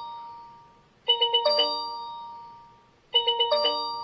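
Smart doorbell chime tone being previewed: a quick run of bell-like notes ending in held ringing tones that fade away, looping about every two seconds. One play fades out at the start, and the tune begins again about a second in and near three seconds in.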